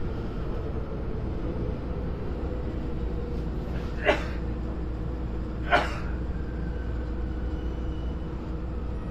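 Sotetsu 21000 series electric train running slowly along an underground station platform, heard from inside the front of the train as a steady low rumble. Two short sharp noises come about four and six seconds in.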